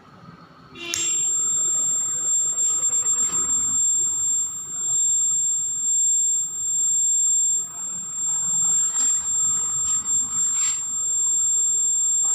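Electronic buzzer of a homemade fire alarm model sounding a steady, high-pitched tone, which signals that the alarm has been set off. It starts about a second in, and its loudness wavers and dips briefly now and then.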